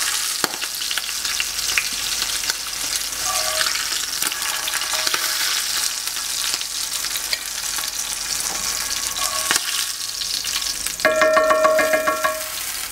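Panko-crumbed abalone sizzling in hot oil in a frying pan, with clicks of metal tongs against the pan as the pieces are lifted out. A short pitched tone sounds near the end.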